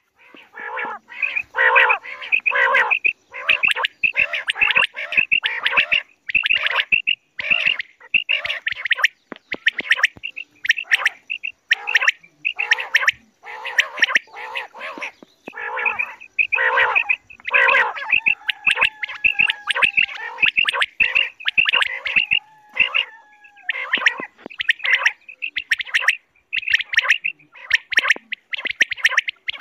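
Quail calling: loud, gritty call notes repeated over and over in quick runs of two to four, with short gaps between runs.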